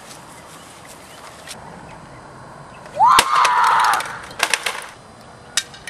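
A person's scream about three seconds in: it rises in pitch, is held high for about a second, then breaks off. A few sharp clicks follow.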